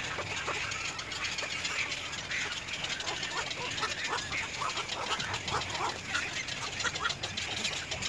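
Wild birds calling: many short, scattered chirps and calls over a steady high hiss.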